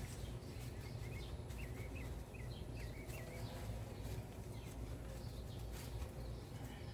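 A small bird chirps a quick run of short notes about one to three seconds in, over a steady low rumble with a few faint clicks.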